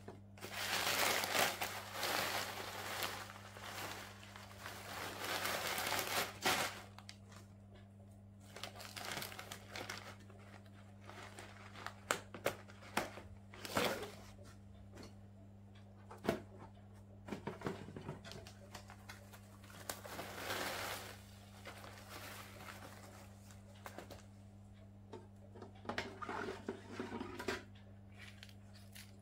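Plastic packaging crinkling and rustling in long stretches, with scattered sharp clicks and knocks of hard plastic filter parts being handled.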